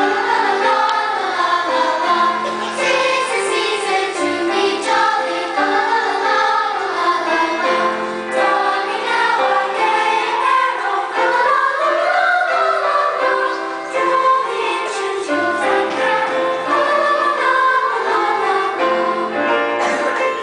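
Song with a choir singing over instrumental backing, running at a steady loud level.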